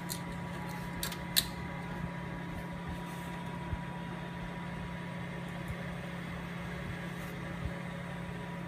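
UP Box 3D printer running with a steady fan hum and a faint high whine, with a few small clicks about a second in.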